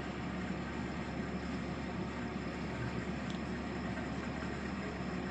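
EENOOR PA600 portable air conditioner running steadily: a constant airy rush over a low hum.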